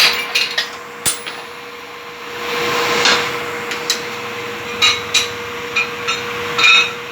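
Sharp metallic taps and clinks of hand tools striking engine parts, about ten of them at irregular intervals, some with a short ringing after. A faint steady hum runs underneath.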